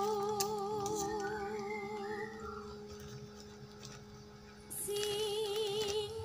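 Background music: a slow melody of held, wavering notes that drops away in the middle and comes back loud about five seconds in.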